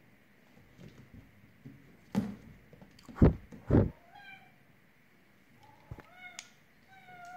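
Three heavy thumps about two to four seconds in, the loudest sounds here, then a cat's short, high meows: a few around four seconds in and several more near the end.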